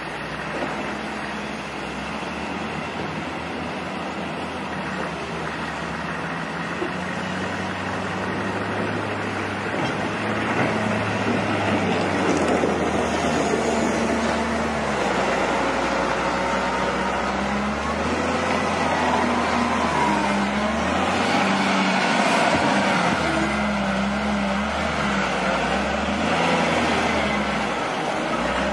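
Wheel loaders' diesel engines working snow, with revs rising and falling under load, over a steady engine drone and scraping noise, growing louder about a third of the way in.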